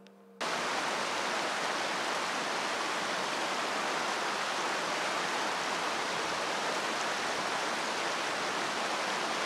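Steady, even rushing noise with no clear low rumble, starting abruptly about half a second in.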